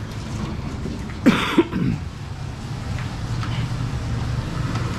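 A steady low engine-like hum, with a person coughing once, loudly, a little over a second in.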